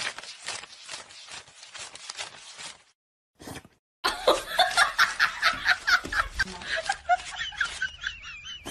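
Banknotes flicked off a stack one after another as money is counted by hand, about five or six snaps a second. From about four seconds in, louder laughter in quick bursts takes over, with a wavering high whine near the end.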